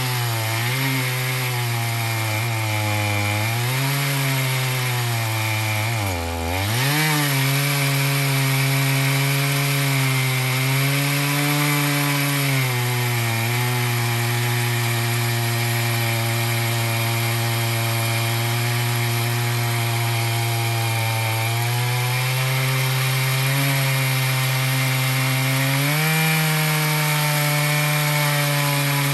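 Chainsaw ripping lengthwise through a cedar log to mill a 2-inch slab, the engine running steadily under cutting load. Its pitch sags sharply about six seconds in and recovers, and rises a little near the end.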